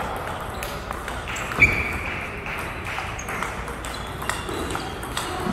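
Table tennis ball in a rally, clicking sharply off the paddles and the table about twice a second. The loudest hit comes about a second and a half in.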